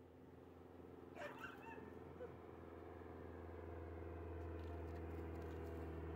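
Aircraft engine drone overhead, growing steadily louder as the plane approaches. A few brief high-pitched squeaks sound about a second in.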